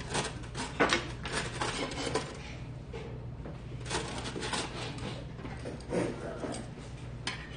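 Dishes and cutlery clinking and knocking: a scattered series of sharp clatters, loudest about a second in, over a steady low hum.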